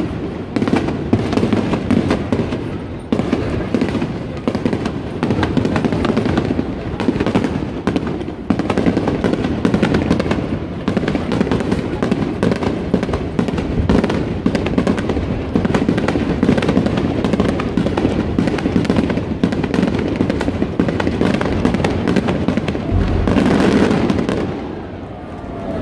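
Fireworks bursting in a dense, continuous barrage of rapid overlapping bangs and crackling. A heavier swell of low booms comes near the end, then eases off.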